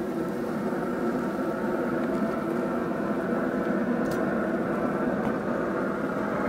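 Recteq Bullseye pellet grill running hot, its fan giving a steady hum, with one light click about four seconds in.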